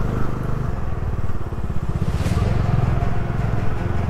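Bajaj Dominar 250's single-cylinder engine running steadily as the motorcycle is ridden, with a brief rush of noise about two seconds in.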